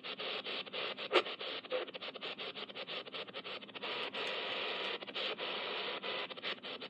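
Shortwave static from the Raynic CR-1009 emergency radio's speaker as the dial is tuned quickly across the band with no station found: a steady hiss broken by rapid brief dropouts, with a sharp crackle about a second in.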